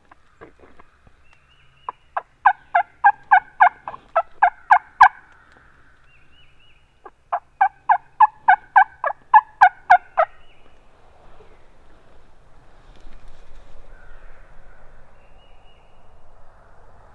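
Two runs of turkey yelping, each about ten or more evenly spaced yelps at roughly four a second, the second run starting about two seconds after the first ends.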